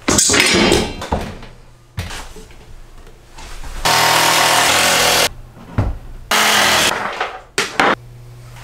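Power drill running in two bursts, about a second and a half and then half a second, with knocks and handling clatter around them.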